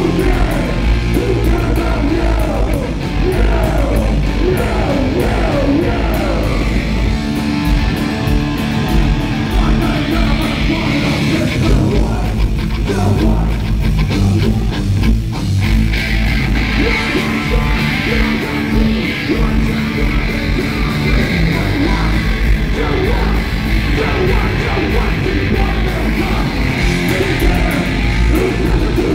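Live hardcore punk band playing at full volume: distorted electric guitars, bass and fast pounding drums, with yelled vocals over the first part.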